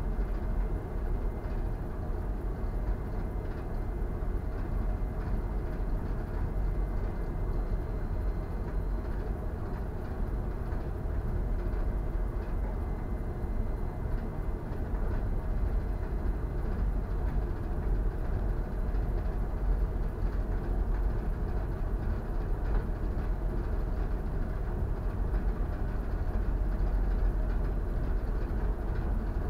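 Steady low rumble and rush aboard a bulk carrier under way: the ship's engine drone mixed with wind on the microphone, unchanging throughout.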